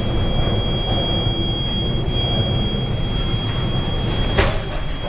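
Storm wind and heavy seas against a large cargo ship: a steady low rumble with a thin, steady high whistle over it, and a sharp knock about four seconds in.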